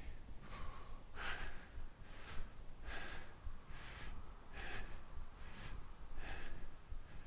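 A man breathing steadily through his nose, short even breaths about every 0.8 seconds, in time with a set of repeated exercise movements.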